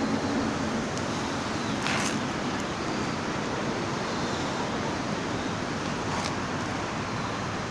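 Steady outdoor background noise, an even hiss with a few faint clicks.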